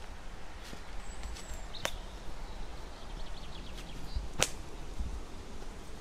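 Footsteps along a woodland footpath, with two sharp snaps, one about two seconds in and a louder one a little after four seconds. Faint high bird calls, including a thin whistle about a second in and a short rapid trill around the middle.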